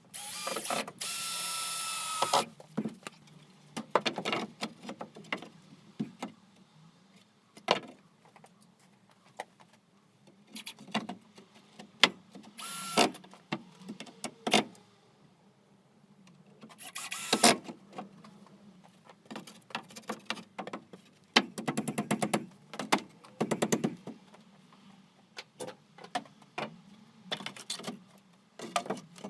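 Power drill/driver run in short bursts while a new door is fitted: a steady pitched run of about two seconds at the start and a shorter one about halfway through, with knocks and clatter of handling in between. A stretch of rapid even clicking comes about two-thirds of the way through.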